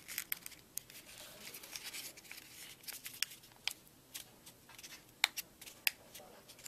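Paper crackling and crinkling as fingers fold and crease it over the end of a paper tube: irregular small crackles, with louder snaps about five and six seconds in.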